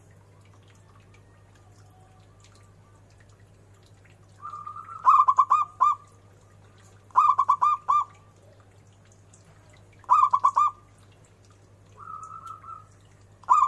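Zebra dove (perkutut) singing: three loud song phrases a couple of seconds apart, each a held coo running into a quick string of rolling notes. A softer phrase comes near the end, and another loud one starts right at the close.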